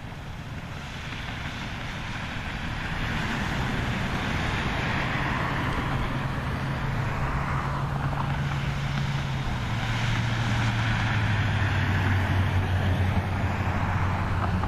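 Airbus A320-212's two CFM56 turbofan engines spooling up to takeoff thrust for the takeoff roll. The jet noise builds over the first few seconds and then holds steady, with a low hum under it that drops slightly in pitch about ten seconds in.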